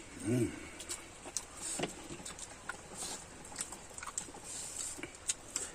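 Close-miked chewing and wet mouth clicks and smacks from eating boiled pork intestine. A brief low hum comes near the start.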